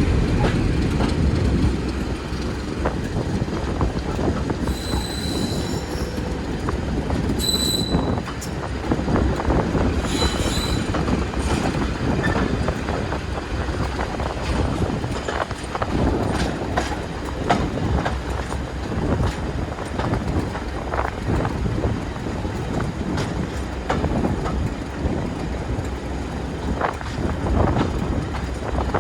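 A train rolling past on jointed track: a steady low rumble with a continuous run of wheel clicks over the rail joints. Short, high-pitched wheel squeals come three times, about five, seven and a half and ten seconds in.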